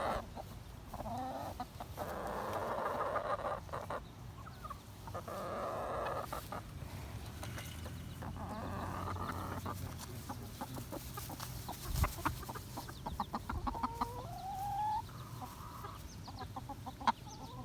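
A flock of chickens clucking, with a few short rising calls about two-thirds of the way through.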